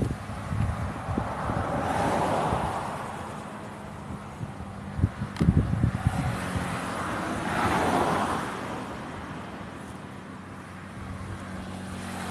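Two road vehicles passing, one about two seconds in and another about eight seconds in, each a rush of tyre and engine noise that swells and fades. Between them, a few sharp knocks and rustles of handling.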